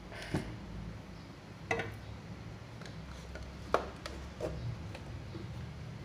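A few separate sharp clicks and knocks as a laptop motherboard and a small hand tool are handled and the board is turned over on a silicone repair mat, over a low steady hum.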